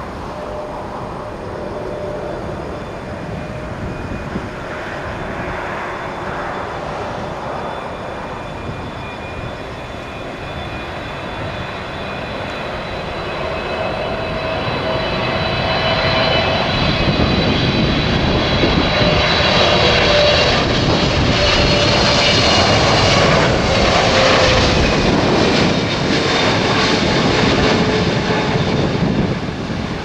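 Jet engines of a FedEx Boeing 777 freighter on final approach, a steady roar that grows louder as the twin-engine jet comes low overhead about halfway through. A high fan whine rides over it, and tones slide down in pitch as it passes.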